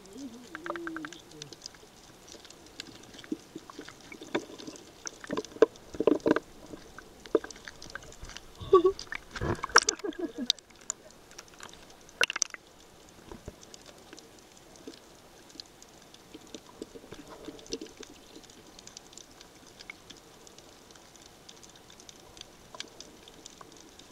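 Muffled underwater sound of snorkelers moving in the water: irregular knocks, clicks and sloshing, busiest in the first half, giving way to a faint steady crackle.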